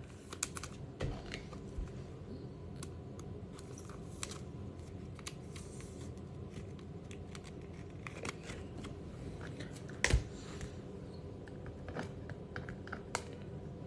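Faint handling of trading cards and their packaging: scattered soft clicks and rustles, with one louder knock about ten seconds in.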